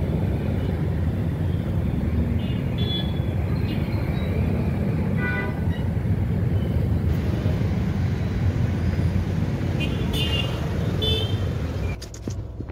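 Road traffic: a steady low rumble of passing engines with several short vehicle horn beeps.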